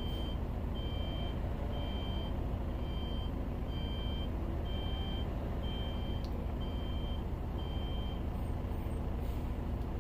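A bus reversing alarm beeping steadily, about one and a half beeps a second, then stopping about eight seconds in. Under it runs the low, steady rumble of idling bus engines.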